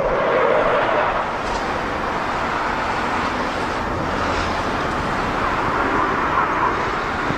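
Saab JAS 39 Gripen fighter's jet engine heard as a steady, even rushing noise.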